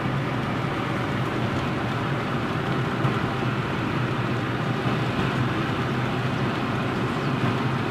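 Steady road noise inside a car's cabin as it cruises at highway speed: a constant low hum of engine and tyres under an even rushing noise.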